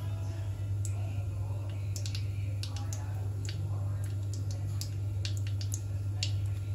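Whole spices and a bay leaf crackling in hot oil in an iron kadai, with irregular sharp pops and spits over a steady low hum.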